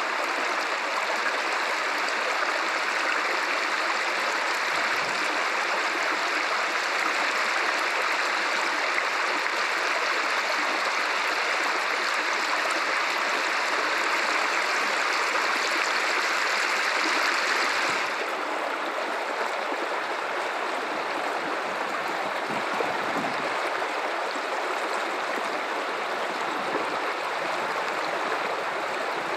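River water running, a steady rushing flow. About eighteen seconds in, the rush suddenly becomes softer.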